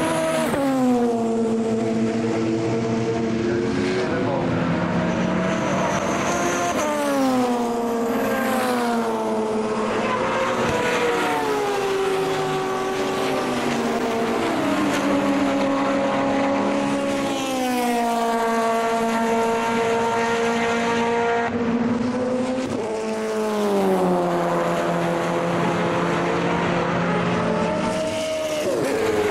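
Racing car engine running hard on track. Its pitch drops sharply several times, about a second, seven, seventeen and twenty-three seconds in, and climbs again in between.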